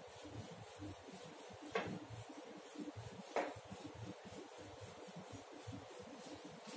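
A whiteboard duster rubbing across a whiteboard, with two sharp knocks, one about two seconds in and one about a second and a half later.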